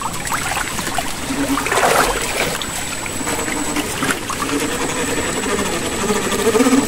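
Steady rush of water flowing over rocks, with scattered clicks and faint humming tones on and off over it.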